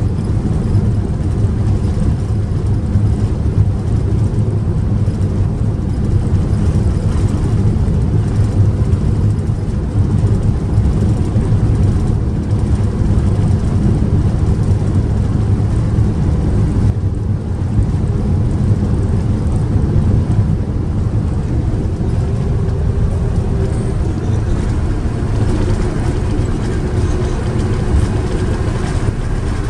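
Airbus A380 heard from the cabin: a steady, loud low rumble of the engines and airframe with no break, a faint steady hum joining in near the end.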